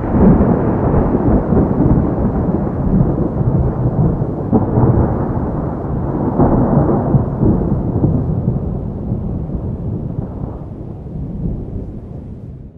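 Long rolling rumble of thunder, loudest at the start and fading away over the last few seconds.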